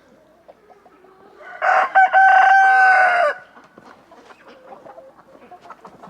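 A rooster crows once: a loud call of nearly two seconds, held at one pitch and dropping at the end, about a second and a half in. Quieter clucking and scratching from the hens in the coop run through the rest.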